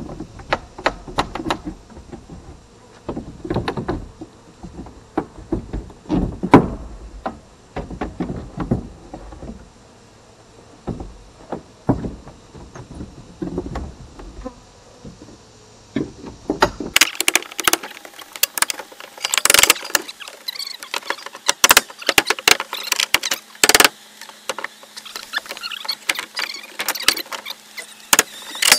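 Honeybees buzzing around an opened colony inside a house wall, with irregular knocks, clicks and scrapes from hands working at the boards and comb. About halfway through, the low rumble drops away and the knocks turn sharper.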